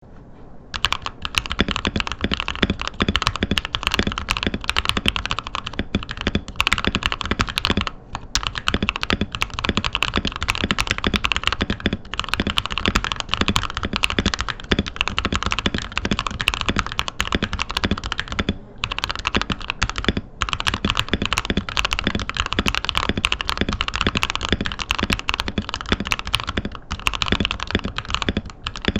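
Fast, continuous typing on a mechanical keyboard with lubed Gateron Pro Yellow KS-9 linear switches and PBT keycaps. Starts just under a second in, with a few short pauses.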